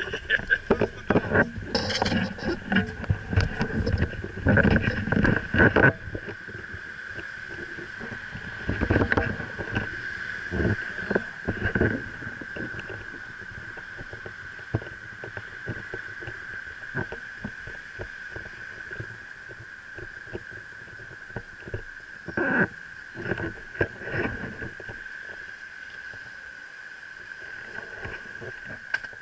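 Rustling, rubbing and knocking of handling right on the camera's microphone, coming in bunches, thickest in the first several seconds, over a steady high-pitched drone.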